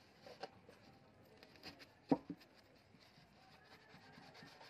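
Handling sounds of a rusty steel hammer head being turned over in the hands: a few light clicks and knocks, the loudest about two seconds in, over a low hiss.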